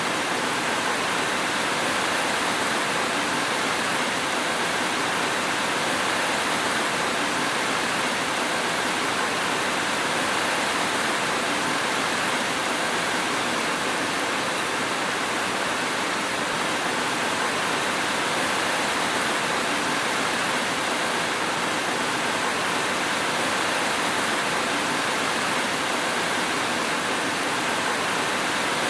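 Steady rain making an even, unbroken hiss, with no thunder and no single drops or strikes standing out.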